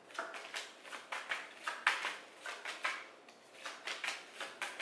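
A deck of tarot cards being shuffled by hand: an irregular series of short, soft card rustles and flicks, a few each second.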